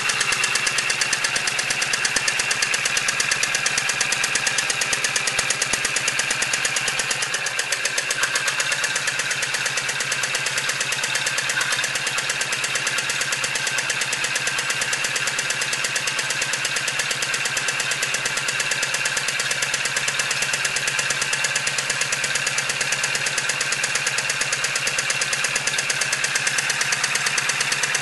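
Model vertical twin-cylinder steam engine running on compressed air, its exhaust beating in a rapid, steady stream of chuffs as it drives an oversized 5-inch boat propeller on its shaft.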